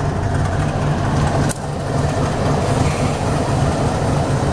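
GE ES43BBI diesel-electric locomotive's engine running steadily with a deep, even rumble, heard up close from the locomotive's outside walkway.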